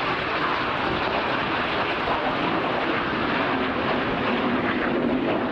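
BAE Hawk T1 jet trainers flying a display, their turbofan engines giving a steady jet noise.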